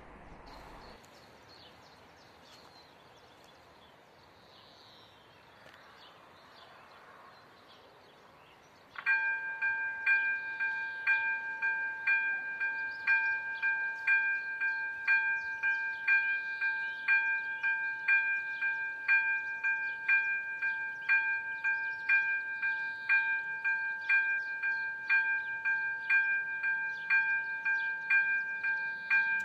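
Quiet background at first; about nine seconds in, a railway level crossing's electronic warning bell starts ringing, an evenly repeating ding that goes on without a break. It signals that the crossing has been activated for an approaching train.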